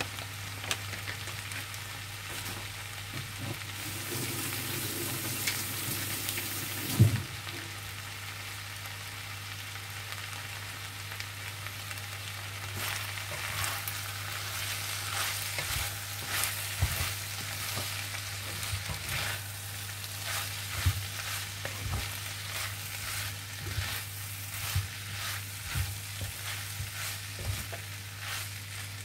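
Noodles and vegetables sizzling in a nonstick frying pan while a wooden spatula stirs and tosses them, with scattered taps and scrapes against the pan and one louder knock about seven seconds in. A steady low hum runs underneath.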